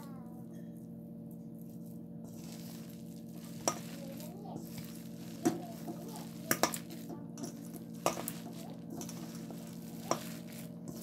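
Hand mixing chopped fenugreek leaves and flour in a stainless steel bowl, kneading in water for pakora batter: a soft, wet rustling stir with about six sharp clinks against the metal bowl. A steady low hum runs underneath.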